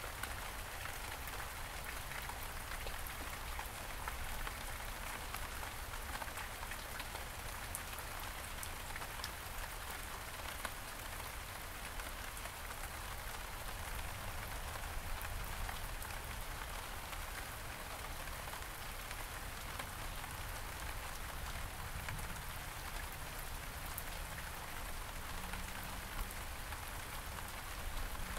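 Steady rain falling on the surfaces of a garden, a continuous hiss dotted with the ticks of single drops, over a low steady rumble.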